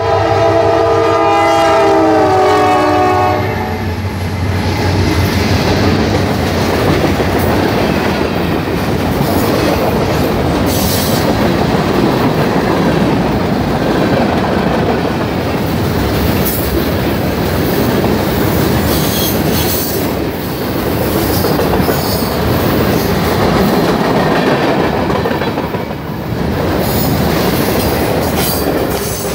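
Norfolk Southern freight locomotive's air horn sounding one chord of several notes for about three and a half seconds, then the train passing close by: a steady rumble of engine and wagons, with wheels clacking over rail joints and brief high squeals now and then.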